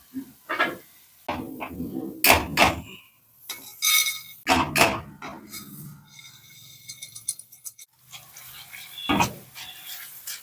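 Kitchen utensils and dishes clattering during food preparation: a string of irregular knocks and clinks, with a short high ringing about two-thirds of the way through.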